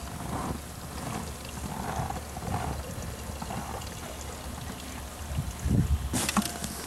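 Water running from an outdoor tap into a plastic pail, with a sharp knock near the end.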